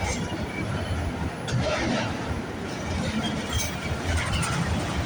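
Freight train cars rolling past on the rails: a steady low rumble, with a few short high wheel squeals and a couple of sharp clanks.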